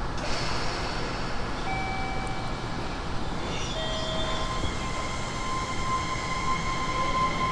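Electric train pulling out of the station under power, with its rumble and a series of steady electrical whines from the traction motors that change pitch as it gets going. A high whine holds through the second half.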